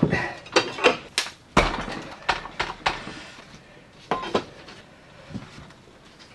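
Steel crowbar knocking and scraping against a document fire safe as it is levered at the hinges to force the jammed safe open. A quick run of sharp metal clanks over the first three seconds, a few more about four seconds in, then it goes quieter.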